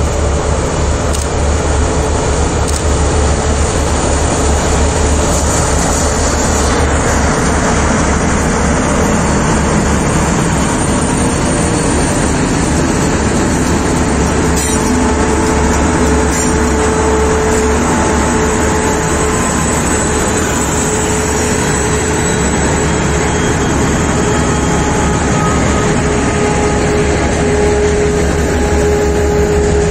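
TEM7A shunting diesel locomotives working under power as they pass close by pulling a train of gondola wagons: a loud, steady diesel drone with the wheels rolling on the rails.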